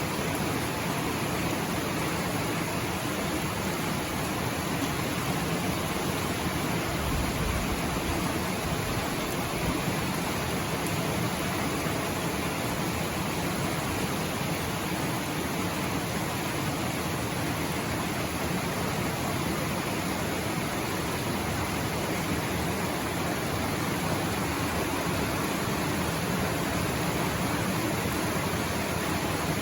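Rain falling steadily: a constant, even hiss.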